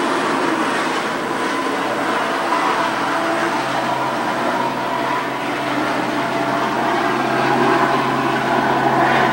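LAPD police helicopter making another low pass, its steady rotor and engine noise growing louder near the end as it approaches.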